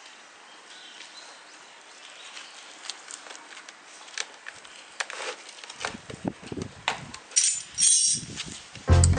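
Scattered clicks and knocks of objects being handled, sparse at first and growing louder and more frequent from about six seconds in, with a short loud clatter near the end.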